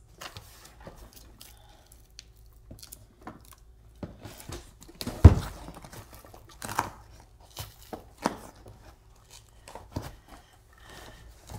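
Taped cardboard shipping box being handled and pried at: scattered rustles, scrapes and taps of cardboard and packing tape, with one louder thump about five seconds in.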